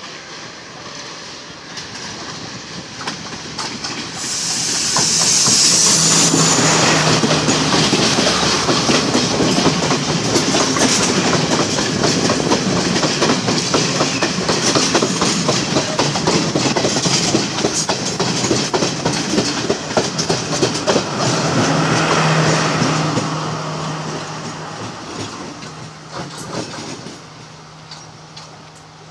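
Sri Lanka Railways Class S12 diesel multiple unit passing close by. Its rumble builds as it approaches, then a dense clickety-clack of coach wheels on the rails holds for about twenty seconds, and it fades as the train pulls away. A low, steady engine drone stands out as the front of the train comes by and again as the rear end passes.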